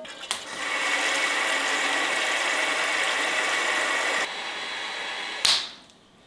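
Water pouring from a brass tap in a steady stream, its sound dropping in level about four seconds in. A short, sharp knock comes near the end.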